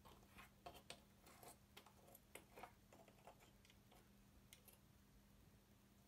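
Faint light clicks and taps as a cat paws at fridge magnets, knocking them against the metal fridge door. The clicks come quickly in the first three seconds, then only now and then, over a low steady hum.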